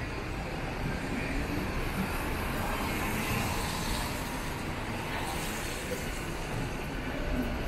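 Steady street ambience of road traffic passing on a rain-wet city street.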